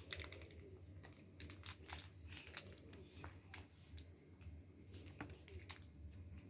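Faint, irregular crinkling and crackling of toy packaging wrappers being picked and torn open by hand.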